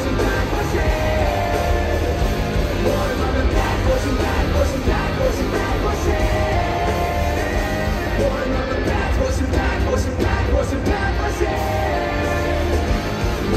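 Loud live band music with heavy bass, electric guitar and vocals, recorded from within the concert crowd.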